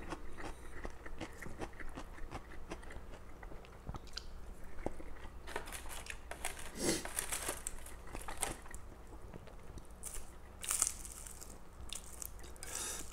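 Close-miked chewing and biting of spicy stir-fried instant noodles (mi goreng), with many small crunchy clicks and smacks spread throughout.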